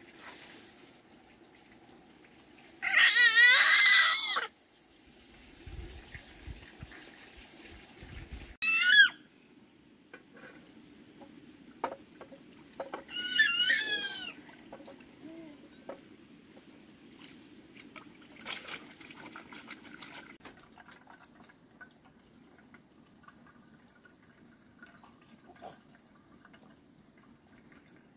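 Water splashing and trickling as dishes are washed by hand in a plastic basin, broken by a few loud, wavering high-pitched cries, the loudest about three seconds in.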